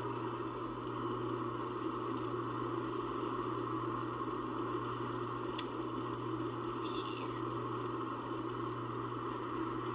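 Steady engine and road noise of a car driving, heard inside the cabin, with a single faint click about halfway through.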